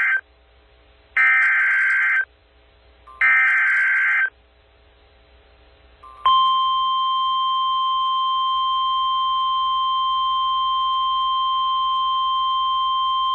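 Emergency Alert System SAME header: one data burst ending, then two more bursts, each about a second long and a second apart. After a two-second gap, a single steady high alarm tone starts and holds; it is the NOAA Weather Radio warning alarm tone that precedes a warning.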